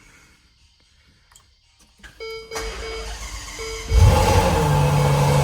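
Ferrari GTC4Lusso cold start: about two seconds in a broken pitched beeping and whirring from the ignition, then about four seconds in the engine fires with a loud burst and settles into a steady idle.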